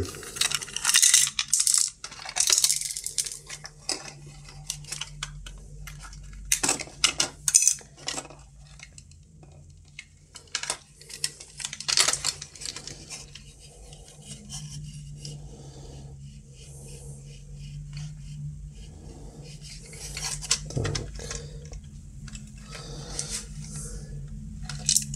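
Clicks and clatter of small hard parts being handled: the opened radiometer's casing, wires and battery connector being moved about. The clicks are densest in the first half, and a low steady hum comes in about halfway.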